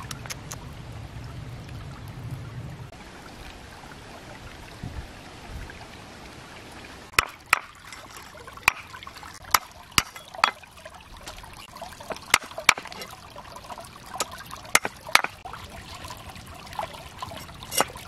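Heavy knife chopping through catfish onto a wooden board: about a dozen sharp chops at uneven intervals, starting about seven seconds in, over the steady trickle of a stream.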